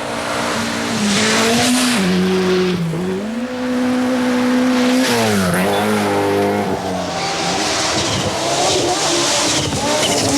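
Group B rally car engine running hard: the revs climb and dip, are held high for about a second and a half, then fall sharply about five seconds in. A rushing hiss comes in from about seven seconds in.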